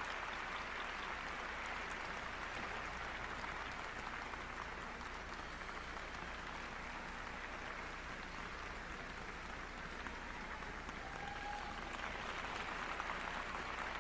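Audience applause from a small arena crowd after an ice dance performance, a steady clapping that eases a little midway and picks up again near the end.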